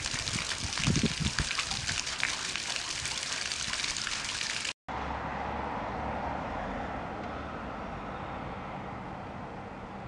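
Small garden fountain jet splashing onto a boulder and into a pond. It cuts off abruptly about five seconds in, giving way to a steady, softer hum of street traffic.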